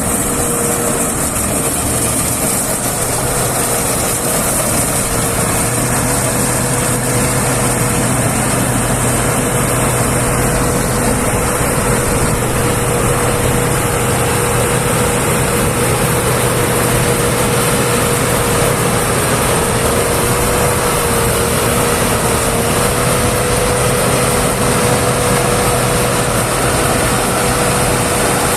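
Combine harvester running steadily under load: a continuous engine drone with a steady whine on top that wavers slightly in pitch now and then.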